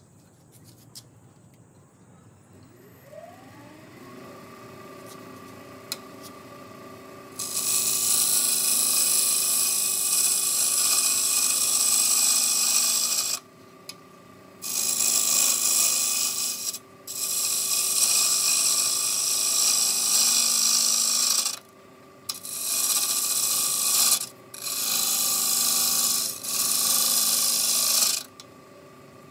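Wood lathe motor spinning up with a rising whine and settling into a steady hum. A hand turning tool then cuts the spinning glued-up wood blank with a loud scraping, shaving sound, in several long passes broken by short pauses.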